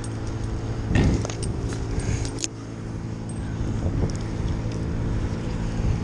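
An engine running steadily at a constant speed, with light metallic clinks and jingles of climbing hardware and chain, and a louder knock about a second in.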